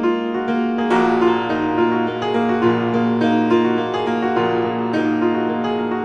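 Background piano music: sustained notes and chords, with a fuller chord and deeper bass notes coming in about a second in.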